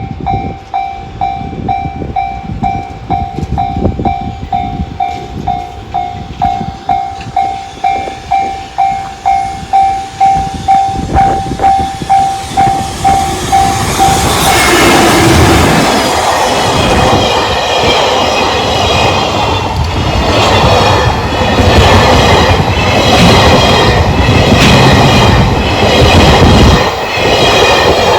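A JR-standard level-crossing alarm rings in a steady rhythm of repeated electronic dings. About fourteen seconds in, a freight train hauled by an EF210 electric locomotive reaches the crossing, and the loud noise and clatter of the locomotive and wagons passing take over.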